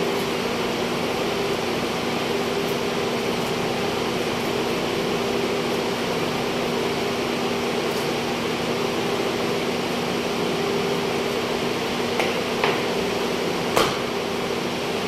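Steady hum of a wall-mounted refrigeration evaporator unit's fans, two even tones over a wide hiss. A few light knocks and clicks near the end.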